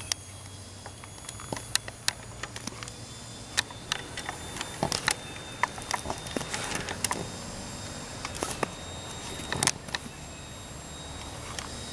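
CSX coal hopper cars rolling slowly past: a low steady rumble with irregular metallic clicks, clanks and rattles from the wheels, trucks and couplers, busiest in the middle stretch.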